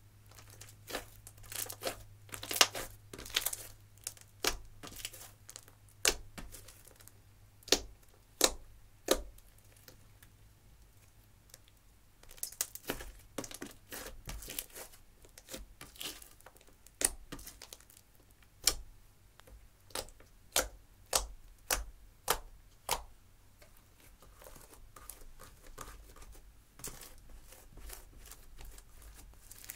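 Makeup-mixed slime being stretched, folded and kneaded by hand, giving a run of irregular sharp sticky clicks and pops as air pockets burst. Near the end the sounds turn to softer, denser crackling as several slimes are pressed together.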